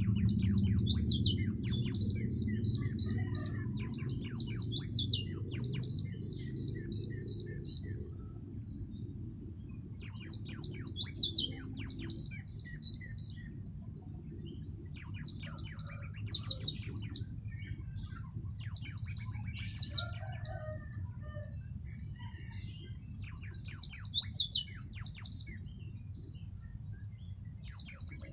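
White-eye (pleci) in full song, singing rapid high-pitched twittering phrases. A long unbroken run comes first, then five shorter bouts a second or two apart, over a low steady rumble.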